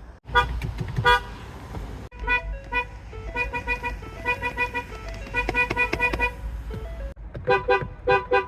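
Car horn sounded in many short toots, a couple near the start and then a quick run of about three to four a second that steps up and down between a few pitches like a tune, over a steady low rumble.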